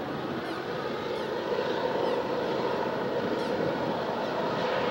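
Distant diesel locomotive engines of a GE ES44AC-led coal train working hard up a grade, a steady rumbling drone with no breaks.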